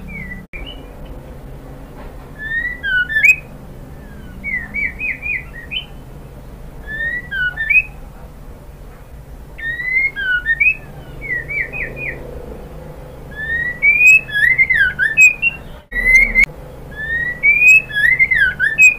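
White-rumped shama singing short phrases of quick rising and falling whistles, a burst every two to three seconds with short pauses between.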